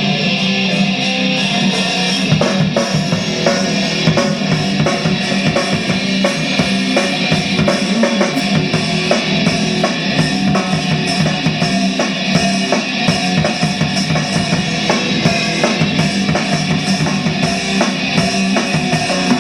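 Live rock band playing: a drum kit keeping a steady beat under guitars.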